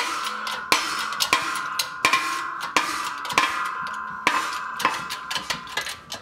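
Repeated hammer blows on steel, roughly one and a half a second, each ringing with the same clear metallic tone, with a heavier clang right at the end.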